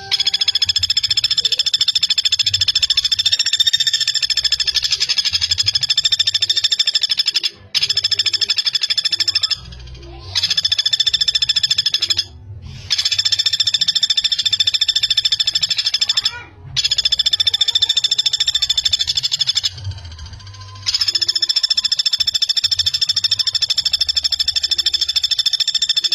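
Common flameback woodpecker (pelatuk bawang) calling in long, very fast runs of repeated high notes, each run several seconds long, about six runs broken by short pauses.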